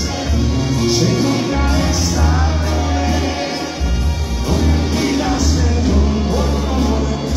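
Live band music with a singer: a strong bass line and a steady beat, with a voice singing over it.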